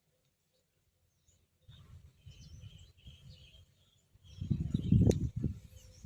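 Faint bird chirps over irregular low rumbling and rustling, which grows louder a little past the middle, with one sharp click near the end.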